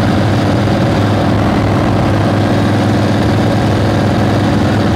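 Old Harley-Davidson motorcycle engine running steadily and smoothly while cruising, at an even engine speed with no revving.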